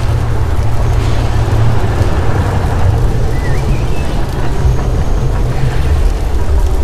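The Mirage volcano show's eruption soundtrack played over outdoor loudspeakers: a loud, steady, deep rumble.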